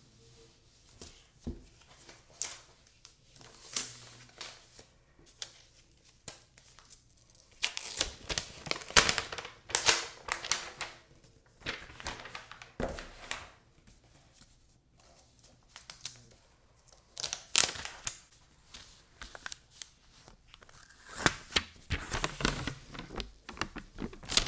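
Packaging being handled and unwrapped: irregular rustling, crinkling and tearing of paper and plastic wrap, in several busy spells with quieter pauses between.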